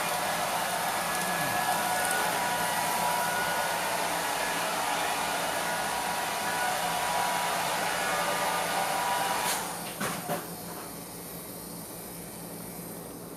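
Steady buzz of a small battery-powered vibrating toy bug running on a wooden floor. The buzz drops away about three-quarters of the way through, followed by a couple of light clicks.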